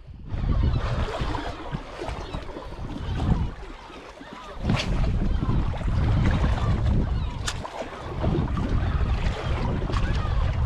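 Wind buffeting the microphone over the wash of small waves against shoreline rocks, a rumbling, gusting noise that swells and dips. Two brief sharp ticks stand out, about five and seven and a half seconds in.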